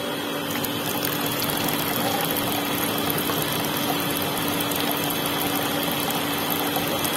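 Small electric motor running steadily, driving a miniature tin-can water pump through a rubber-band belt, with water streaming from the straw spout into a small bucket. A steady hum under an even wash of running-water noise.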